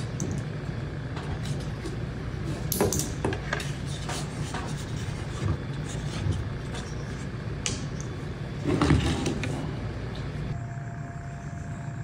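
Scattered light clicks and taps of thin wooden veneer strips and plastic spring clamps being handled on a wooden tabletop, with a louder knock about nine seconds in, over a steady low rumble.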